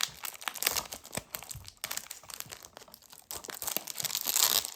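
Plastic shrink-wrap crinkling and tearing as it is peeled off a Blu-ray case: a dense run of crackles, loudest near the end.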